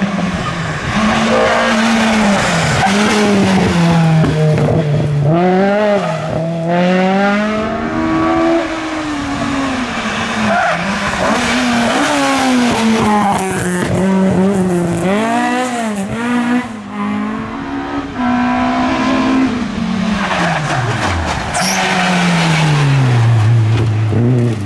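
Rally car engines revving hard, the pitch climbing and falling again and again through gear changes and lifts off the throttle. About twenty-one seconds in it drops sharply, then picks up again.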